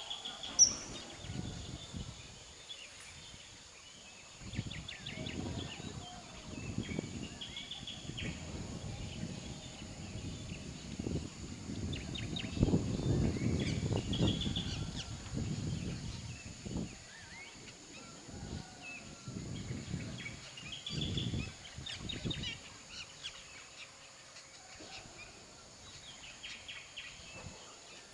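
Small birds chirping in short calls over a steady high-pitched whine, with irregular low rumbling gusts that swell loudest about halfway through and die away in the last few seconds.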